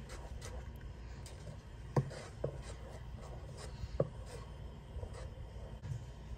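Wooden spoon stirring a thick, chunky mixture of half-frozen strawberries, cranberries and sugar in a stockpot, with a soft scraping, rubbing sound and two sharper knocks about two and four seconds in.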